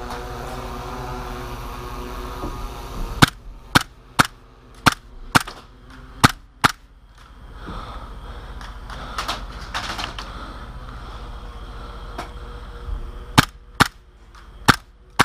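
Airsoft guns firing: a quick irregular run of sharp pops, about seven over three and a half seconds, then a pause and four more near the end.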